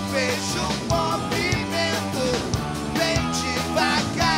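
Rock band playing live: a male voice singing over keyboard and drums.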